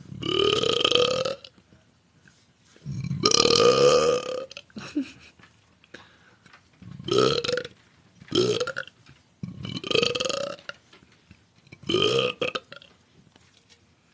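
A woman burping six times, each belch rising in pitch. The first two last about a second and a half each, and the last four are shorter.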